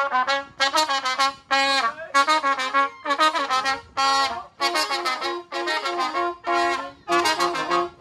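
Brass band horn section of trumpets and trombones playing a tune live, in short, punchy phrases with brief gaps between them.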